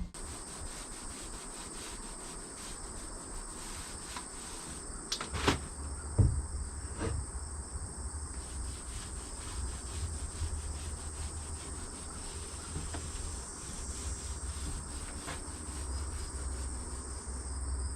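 Crickets chirring steadily in a high, even drone, with a few soft knocks about five to seven seconds in.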